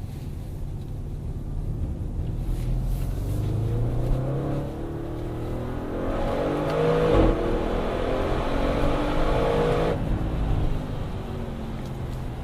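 Audi RS6 Performance's twin-turbo V8 accelerating hard, its note rising for several seconds. About seven seconds in the note breaks briefly at its loudest point, then climbs again. It drops off sharply about ten seconds in.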